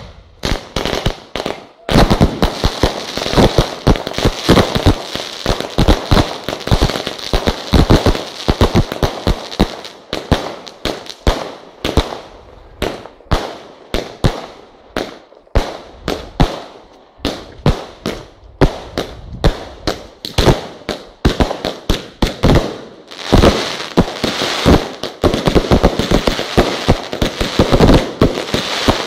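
Fireworks display: a rapid, continuous barrage of bangs and crackles from aerial bursts. The bangs thin out somewhat around the middle and grow dense again in the last several seconds.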